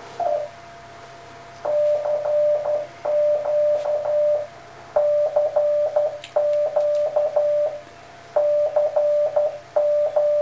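Morse code on a single steady tone, keyed by an Arduino-driven 7.159 MHz crystal oscillator transmitter and heard as a CW signal: an automatic CQ caller sending CQ three times at a slow, even speed. It starts about a second and a half in, after one short blip.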